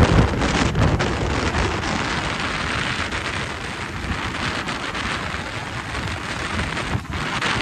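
Wind rushing over the microphone of a motorcycle riding at highway speed, with a heavy buffeting thump right at the start, then a steady rush.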